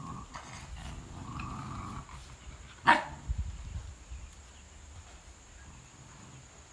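Dog giving one short, sharp bark about three seconds in, with fainter dog sounds before it.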